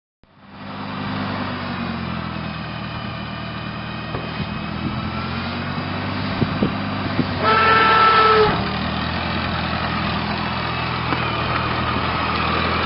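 An engine runs steadily, fading in over the first second. A horn sounds once for about a second just past the middle.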